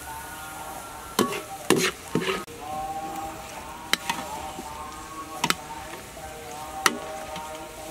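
Minced garlic sizzling in hot oil in a metal wok, with a wire-mesh skimmer scraping and clinking against the wok as the golden fried garlic is scooped out. The sharp metal clinks come in a quick cluster at first, then singly every second or so.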